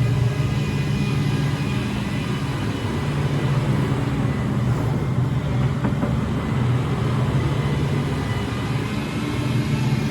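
Diesel engine of a Volvo ECR235EL crawler excavator running steadily, a low even hum with slight rises and falls in level.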